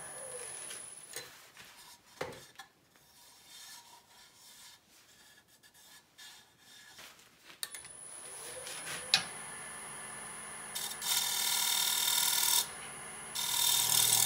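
Wood lathe running with a steady high whine, which drops out for several seconds in the middle. Near the end a scraper shear-scraping the spinning cherry bowl makes two loud hissing scrapes, each about a second and a half long.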